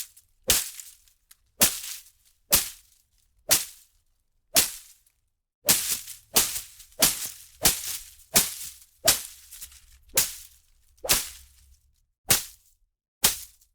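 Leafy plants and foliage being whipped and slashed: a series of about sixteen sharp swishing strikes, each followed by a brief rustle of leaves. They come roughly once a second, a little faster in the middle.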